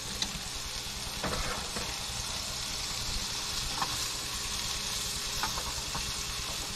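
Sliced mushrooms sizzling in butter in a skillet, stirred with a silicone spatula, giving a steady frying hiss with a few faint scrapes and clicks.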